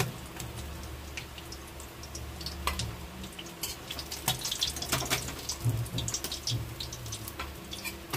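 Hot oil crackling and spitting in a steel kadai as fried fish is lifted out with a spatula: scattered sharp ticks, thickest midway, with clicks of the steel spatula against the pan, over a steady low hum.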